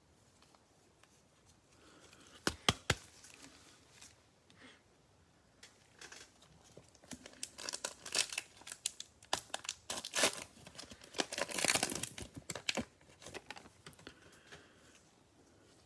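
Cellophane wrapper of a Mosaic football cello pack being torn open and crinkled. Two sharp snaps come about two and a half seconds in, then a long stretch of crinkling and tearing, loudest in the second half.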